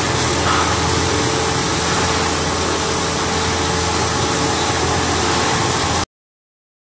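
1000 mm stretch film extrusion machine running steadily: a constant mechanical hum and hiss with a held mid-pitched tone. It cuts off suddenly about a second before the end.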